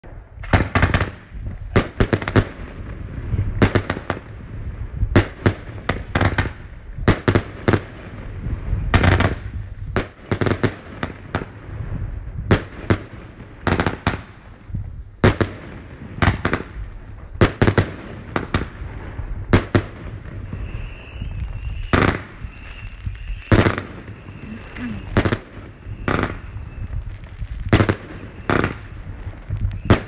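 A China Red 'Bulldozer' 115-shot, 25 mm consumer firework battery firing: an uneven, rapid string of sharp launch thumps and shell bursts, a few a second. In the last third a faint, steady high whistle runs under the bangs.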